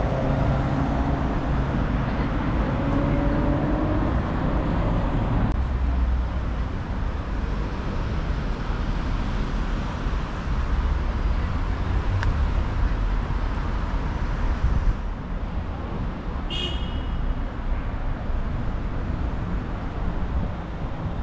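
City street traffic: cars and other vehicles passing along a busy boulevard in a steady rumble, with a brief high chirp late on.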